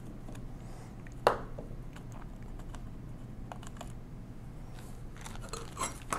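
Light clicks and taps of a hand screwdriver and small screws on the metal frame of a 1920s Monroe mechanical calculator as it is unscrewed, with one sharper click about a second in. Near the end come a quick cluster of light clicks and some plastic rustling.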